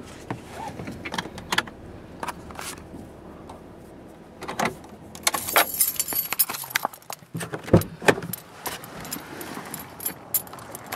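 A set of car keys jangling and clicking in the hand, with a dull thump about eight seconds in.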